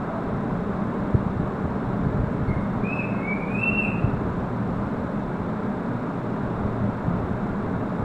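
African grey parrot gives a brief high whistle in three short glides about two and a half seconds in, over a steady low background noise with a faint hum.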